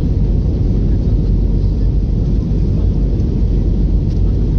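Steady low rumble of an Airbus A321neo in flight: engine and airflow noise, even throughout with no change in pitch.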